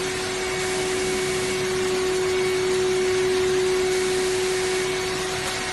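AOKE flatbed CNC router cutter running: a steady motor whine over an even rushing noise, with no change in pitch.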